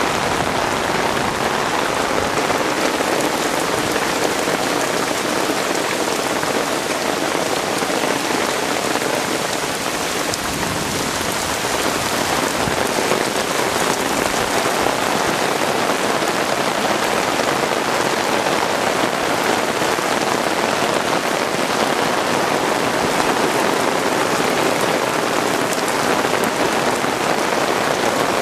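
Heavy rain falling steadily, an even, dense hiss of drops.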